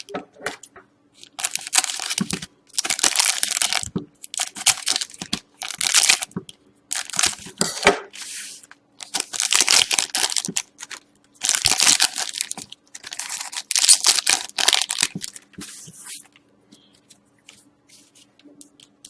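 Hockey card packs being torn open and their wrappers crinkled: a run of short ripping, crackling bursts, thinning out near the end.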